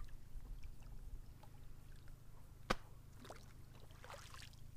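Small boat sitting on the water: a steady low rumble, with one sharp knock against the boat a little under three seconds in, then two short high-pitched squeaks.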